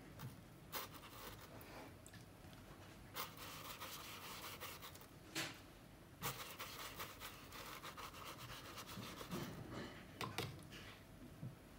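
Faint scratching and rubbing of a paintbrush working wet watercolour across paper, with a few sharp taps.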